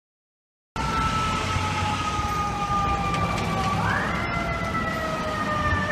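Fire engine siren wailing over city traffic noise, starting suddenly about a second in: its pitch sinks slowly, sweeps up quickly about halfway through, sinks again, and begins to rise once more near the end.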